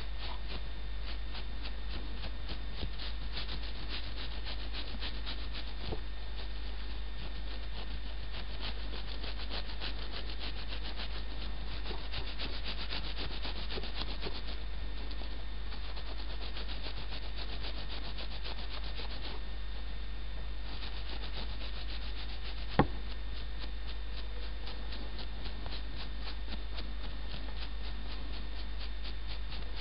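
Steady scratchy rubbing and crackling noise over a low hum, with a sharp click about 23 seconds in.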